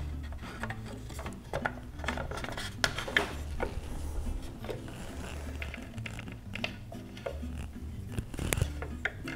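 Scattered light clicks and knocks of wooden dowel axles and pins being pushed into the wooden wheels and clacker parts of a toy push mower by hand, over background music with a steady bass line.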